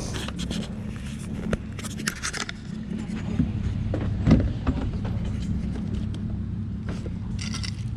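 A steady low rumble, like a motor vehicle running nearby, with scattered light clicks and scrapes and one louder knock about four and a half seconds in.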